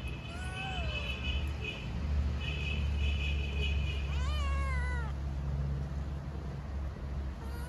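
Stray tabby kittens meowing, begging for food: a short falling meow just after the start and a louder, drawn-out meow about four seconds in, over a steady low rumble.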